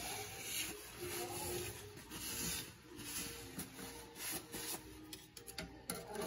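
Knife blade scraping old caulk off the rim of a stainless steel sink in repeated rubbing strokes, with a quick run of short scrapes near the end.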